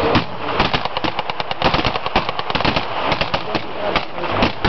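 Blank gunfire from a battle reenactment: machine-gun bursts and single shots cracking in quick, irregular succession.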